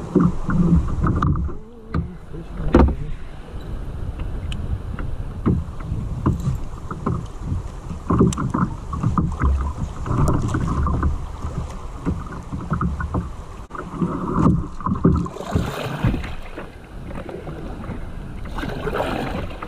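Kayak paddling on a moving river: the paddle blades dip and splash while current rushes along the plastic hull through a riffle, with a few short knocks and two louder splashes near the end.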